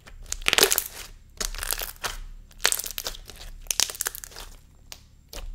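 Thick, glossy slime being pressed and stretched by hand, its trapped air popping and crackling in about four bursts roughly a second apart.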